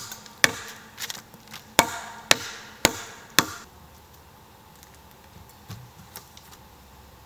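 A tool striking timber: a run of sharp knocks on wood, about two a second, that stops after about three and a half seconds. A few faint taps follow.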